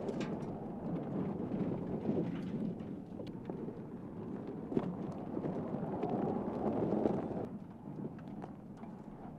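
Tyres rolling and crunching over gravel and stones, with many small clicks and pops in a steady rumble that grows louder for a while and then fades after about seven seconds.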